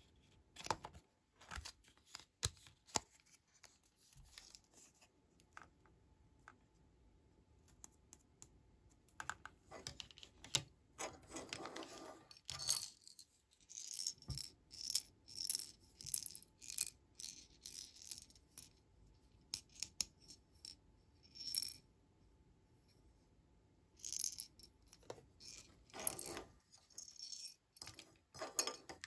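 Small hard-plastic toy doctor-set pieces handled and set down on a table: light clicks, taps and scrapes in irregular clusters with short pauses.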